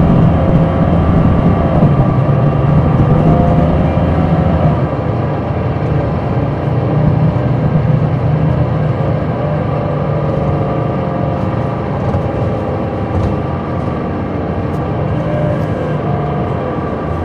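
Caterpillar C9 ACERT diesel engine of a Neoplan AN459 articulated transit bus, heard from on board. It runs loud for about five seconds, then eases off and runs more quietly.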